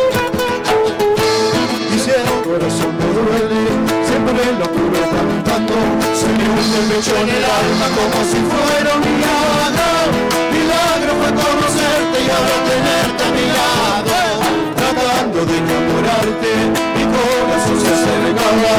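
Live band: two men singing together over strummed acoustic guitars, with a drum kit keeping the beat.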